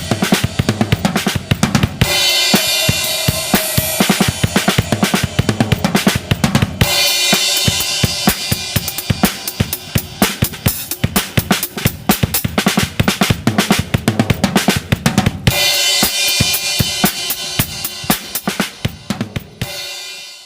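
Drum kit played with Armada Trojan B8 bronze cymbals: fast bass drum and snare strokes under ringing cymbals, with fresh crash washes about two, seven and fifteen seconds in. The playing fades out at the very end.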